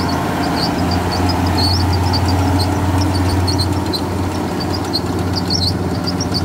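Kubota GL46 tractor's diesel engine running steadily, a low hum that grows stronger about a second in, with short high chirps over it throughout.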